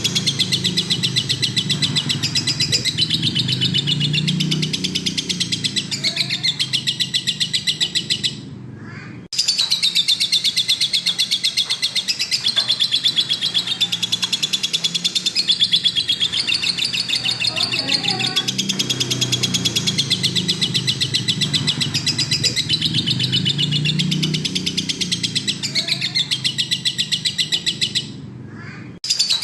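Lovebird in full song, a long fast run of shrill high chirps and chatter with two brief breaks, one about nine seconds in and one near the end.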